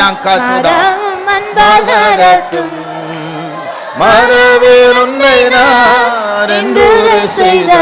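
A Tamil Christian worship song being sung in long, drawn-out melodic phrases, the voice sliding between notes. The singing softens to a held note about two and a half seconds in, then comes back loud with a new phrase about four seconds in.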